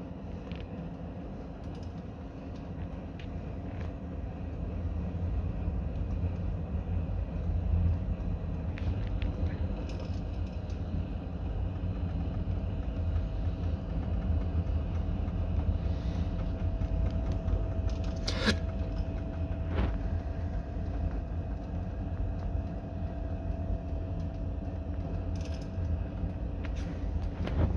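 Fire in a closed wood stove burning a pair of socks: a steady low rumble of flame and draft that builds over the first several seconds as the socks catch, then holds. A couple of sharp clicks about two-thirds of the way through.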